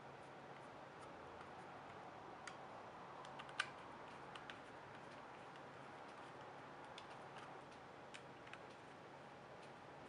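Faint, scattered small metallic clicks and ticks of a precision screwdriver turning mounting screws into the side of an SSD's metal casing, with one sharper click about three and a half seconds in, over quiet room tone.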